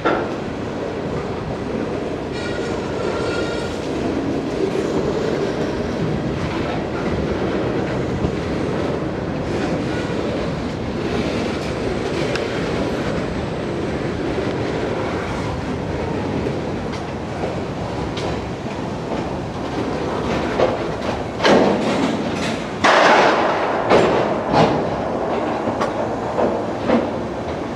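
Norfolk Southern train creeping past at low speed: steady rumble of wheels on rail, then a run of louder, sharp clanks and clacks over the last several seconds.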